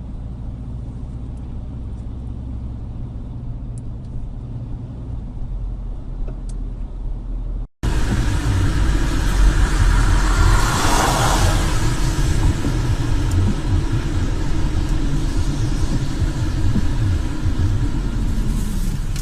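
Steady low rumble of a motor vehicle's engine and road noise. About eight seconds in it cuts to a louder stretch of the same kind of rumble, with a brief swell of hiss a few seconds later.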